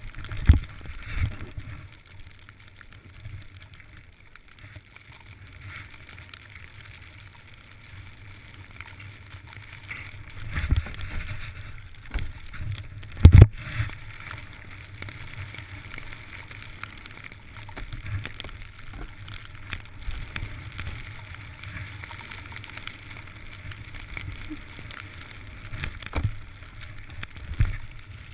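Snowboard sliding through snow, heard through a helmet-mounted camera: a steady hiss over a low rumble, with several sharp knocks, the loudest about thirteen seconds in.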